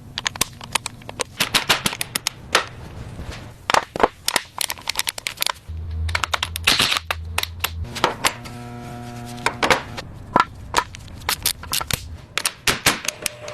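Sharp metallic clicks and clinks of tools and engine parts being handled and fitted, many in quick, irregular succession. A short low hum comes in about six seconds in, and a brief buzzing tone about eight seconds in.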